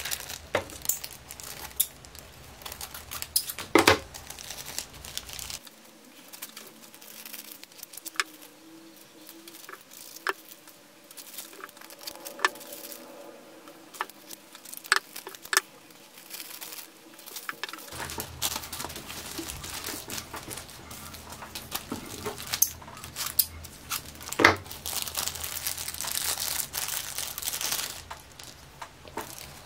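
Plastic bags crinkling and rustling as wet plants are unpacked and handled by hand, with scattered light clicks and ticks.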